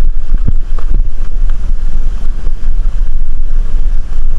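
Loud wind buffeting on the microphone with a vehicle's rumble beneath it while riding along a rough road, with a couple of short thumps about half a second in.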